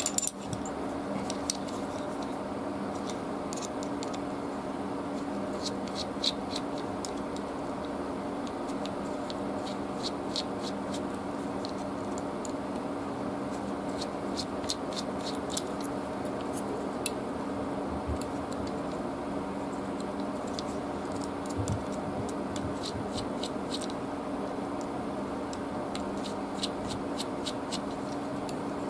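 Scattered small metallic clicks and light scrapes of a precision screwdriver turning the screws of a folding knife's handle and handling its parts. Under them runs a steady low hum.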